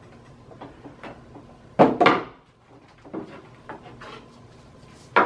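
A mallet striking a wedge or chisel driven into the seam of a fiberglass mold, twice in quick succession about two seconds in. A few lighter knocks follow, and another sharp strike comes at the very end.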